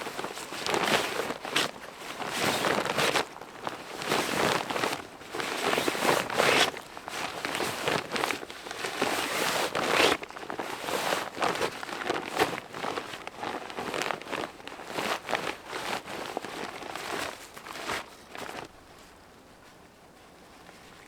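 Irregular rustling, crinkling and crunching handling noise, close and fairly loud, that dies away a few seconds before the end.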